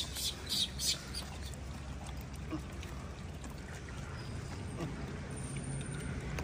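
Rhesus macaques feeding: a quick run of about five short, high squeaks in the first second, over a steady low rumble.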